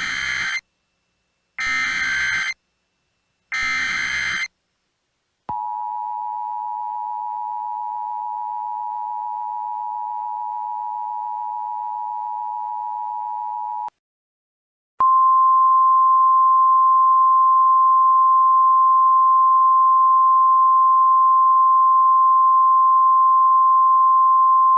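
Emergency Alert System alert tones announcing a severe thunderstorm warning. Three short buzzy bursts of SAME digital header data come first. Then the steady two-tone attention signal sounds for about eight seconds, and after a second's gap a louder single steady alert tone sounds for about ten seconds.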